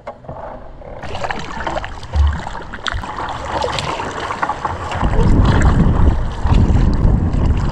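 Kayak on the water: paddle splashes and drips, with wind buffeting the microphone, louder from about five seconds in.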